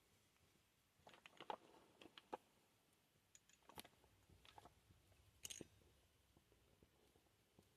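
Faint clicks and crackles of a doll being handled as its silicone head is worked off the cloth body, in short scattered bursts over otherwise near silence.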